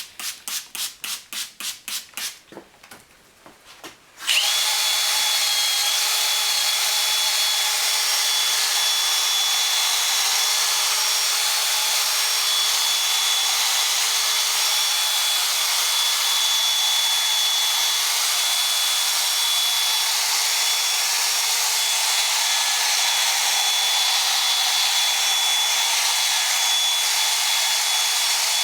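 Power drill with a sanding pad started up at about four seconds and running steadily with a whine, sanding the headlight lens at the 2000-grit step. Before it, a short run of quick rhythmic strokes, about four a second.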